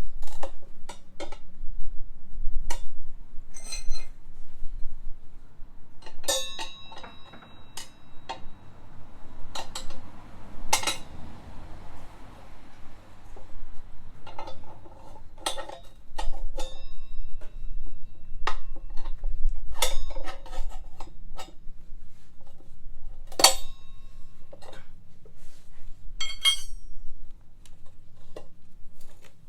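Metal tools and parts clinking and clattering during a scooter front-tyre change: irregular sharp knocks, some of them ringing briefly like struck steel. There is a soft hiss about ten seconds in.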